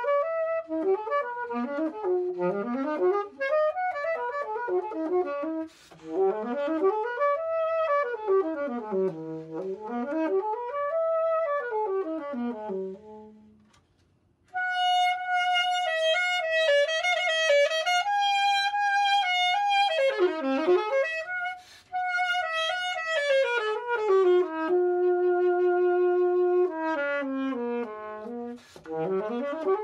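Solo alto saxophone, a Yamaha YAS-875, playing fast scale runs up and down, stopping about 14 seconds in. After a short pause a Selmer Serie III alto saxophone takes over, playing long held notes mixed with quick runs.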